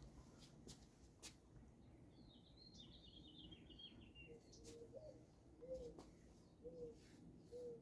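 Faint birdsong: a quick run of high chirping notes about two seconds in, then short low calls repeating about once a second. A few faint clicks come in the first second and a half.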